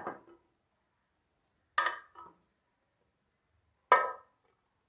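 Metal clanks of a pressure cooker's lid being handled as the cooker is opened, each with a brief ring: a quick double clank about two seconds in and a louder single clank near the end.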